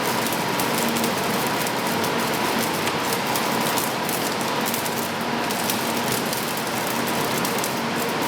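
Dense, steady crackling and sizzling of a flash-butt rail welder during continuous flashing, over a faint steady machine hum.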